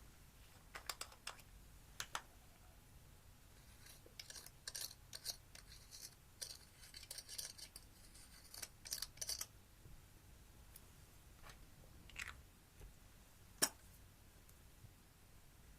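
Slime being squished and poked, giving scattered crisp crackles and pops, a dense run of them in the middle, and one sharp click near the end.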